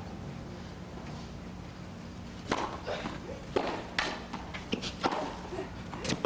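A steady hush, then from about two and a half seconds in, a tennis rally: a string of sharp pops of the ball struck by rackets and bouncing on the hard court, about half a second to a second apart.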